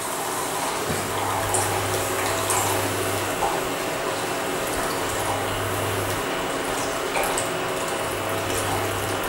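Water pouring steadily into a hot pan of roasted semolina, wheat flour and gram flour with sugar while a wooden spatula stirs, with a few light spatula knocks. A low hum from the induction cooktop cuts in and out three times.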